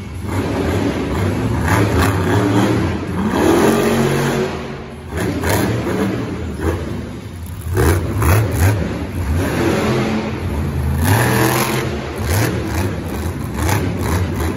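Velociraptor monster truck's supercharged V8 engine revving hard again and again, its pitch sweeping up and falling back between bursts, as the truck drives and turns on the dirt track.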